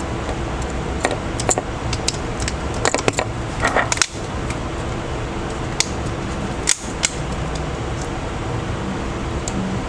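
Scattered light clicks and taps, a few sharper ones near the middle, over a steady background hiss and hum, typical of small tools and parts being handled during a smartphone teardown.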